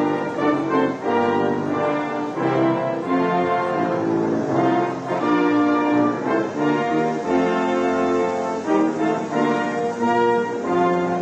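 Military brass band playing a melody, with horns, trombones and trumpets holding notes that change every half-second or so.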